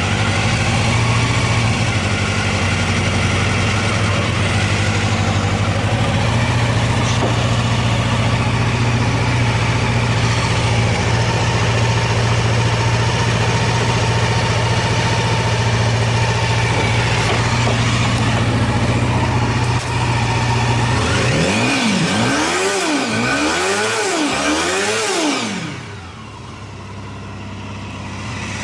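Honda CBR250R MC19 four-cylinder engine idling steadily, then blipped four times in quick succession, each rev rising and falling in pitch, before dropping back down. The title calls it running with no abnormal noise.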